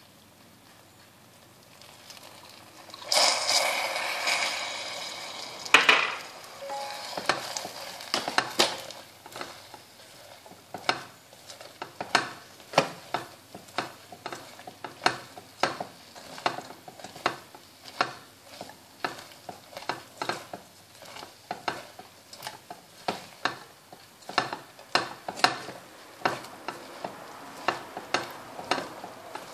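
Hot caramel hissing and sizzling for a few seconds as a capful of vanilla essence goes into it. Then a silicone spatula stirs caramel-coated popcorn in a stainless steel saucepan, scraping and knocking against the pan in a steady rhythm of roughly one stroke a second.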